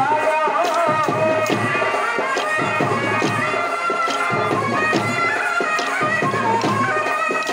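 Traditional Telugu folk music for a kolatam stick dance, played loud: a wavering melody over a steady beat of sharp clicks.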